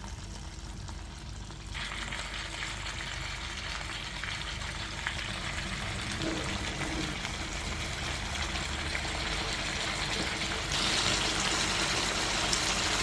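Pork ribs sizzling in a pan over a low flame: a steady frying hiss that starts about two seconds in and turns louder near the end.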